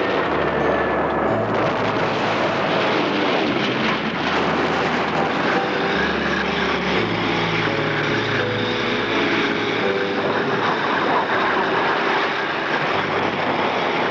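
Steady, dense engine noise of military vehicles, a continuous mechanical din without pauses.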